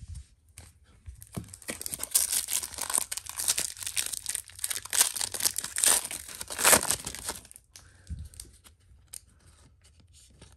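Foil wrapper of a 1994-95 NBA Jam Session trading-card pack being torn open and crinkled by hand, a dense crackling that starts about two seconds in and stops a few seconds before the end, leaving only faint card handling.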